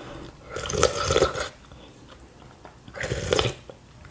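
Two loud slurps of spicy meatball-soup broth sipped from a wooden spoon: a longer one about half a second in and a shorter one about three seconds in, with small mouth and eating sounds between.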